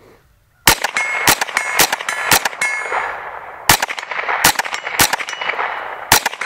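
Smith & Wesson M&P 15-22 semi-automatic .22 LR rifle firing about ten shots at an uneven pace, starting under a second in with a short pause near the middle. Each hit is followed by a brief metallic ring, as of rounds striking steel targets.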